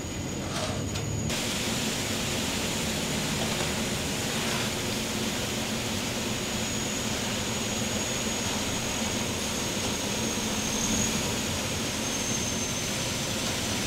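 Concrete mixer truck running steadily while it discharges wet concrete down its chute: an even engine and drum noise with a faint thin high whine.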